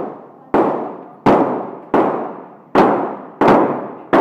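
Glock 17 9mm pistol fired six times at a steady pace, about one shot every 0.7 seconds, each shot ringing out and decaying in the echo of an indoor range.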